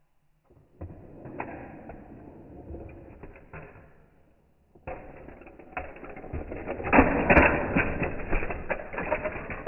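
Plastic Hot Wheels shark-attack playset rattling and clicking as toy cars run along the track and the spring-loaded shark head snaps up, flinging a car out. Two bouts of clatter with a brief pause between; the second is louder, peaking about seven seconds in.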